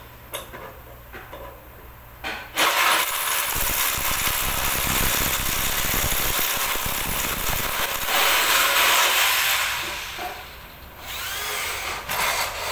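Handheld electric drill boring overhead into the top of a sliding-door opening. It starts about two and a half seconds in, runs steadily for about seven seconds, then eases off.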